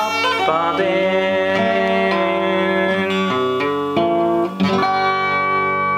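Acoustic guitar playing the closing chords of a folk song: a few strummed chords, the last, about five seconds in, left ringing out as the ending.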